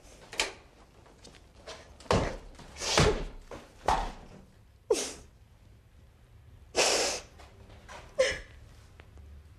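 A woman crying: a string of short sobs and gasping breaths, irregularly spaced, some of them breaking into a brief voiced whimper.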